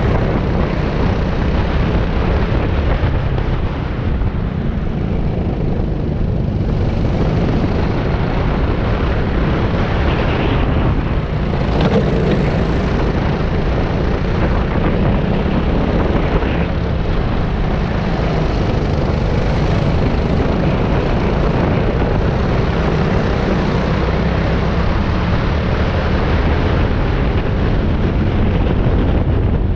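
A go-kart engine running steadily at racing speed, with a constant rush of wind noise over the microphone.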